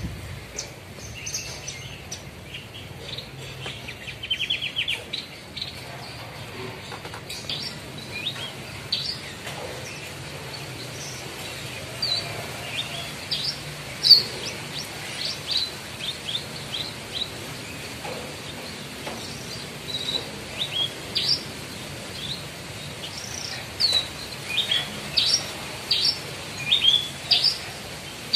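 Horsfield's bush lark (branjangan) singing its varied repertoire of mimicked calls: short high chirps and quick whistled slides, with a fast trill of repeated notes about four seconds in and denser calling near the end.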